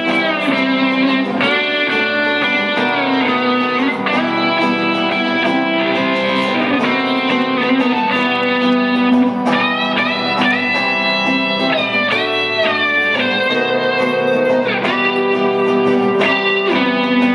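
Instrumental break of a rock song: a lead guitar plays a melody of held notes that bend and slide in pitch, over a steady guitar and band accompaniment.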